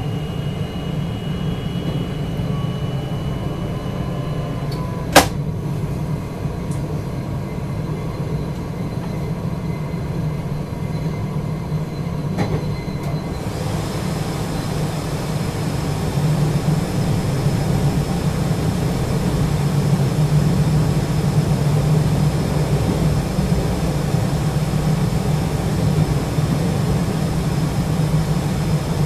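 Electric passenger train running along the line, heard from the driver's cab as a steady deep rumble of wheels on rail. A single sharp click comes about five seconds in, and about halfway through the sound grows a little louder and brighter, with a thin high whine.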